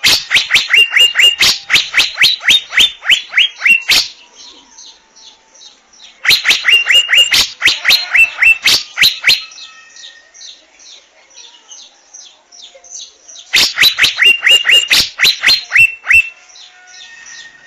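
Asian fairy-bluebird calling: three loud series of rapid, sharp, slightly falling notes, each series lasting a few seconds, with fainter quick chirps between them.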